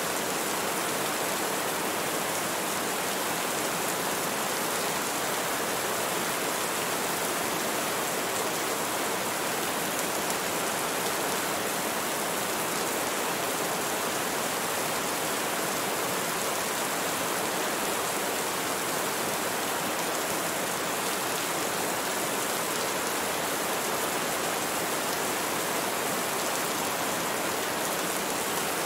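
Steady rain falling, an even, unbroken hiss of many drops that keeps the same level throughout.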